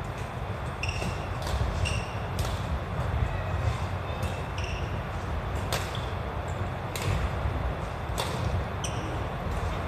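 Badminton rackets striking a shuttlecock in a rally: about six sharp hits spaced a second or so apart. Between them come several short, high squeaks of court shoes on the wooden hall floor.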